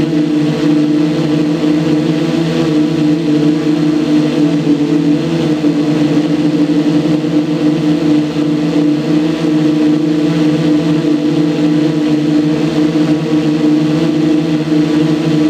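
Small engine running steadily at an almost constant pitch, a continuous buzzing drone with only a slight waver.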